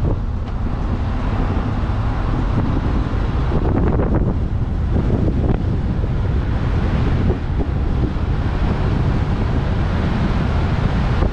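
Wind buffeting the microphone of a moving vehicle, a steady low rumble with road noise underneath.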